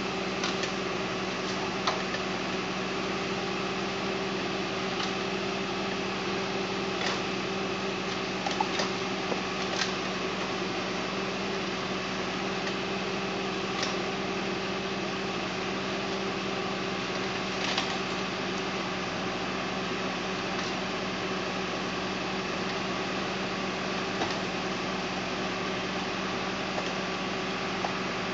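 Valtra Valmet 6800 tractor's diesel engine running at a steady speed while it powers the hydraulic log-loading crane, with a few short light knocks scattered through.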